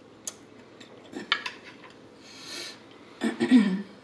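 Eating sounds at close range: a few light clicks of a metal fork on a plate and wet mouth crackles of chewing, with a soft breath midway. Near the end comes a short low throaty mouth sound, the loudest part.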